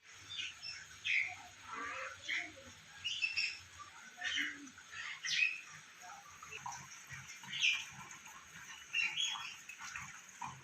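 Birds calling in short chirps and squawks, about one every second, over a steady hiss of falling rain.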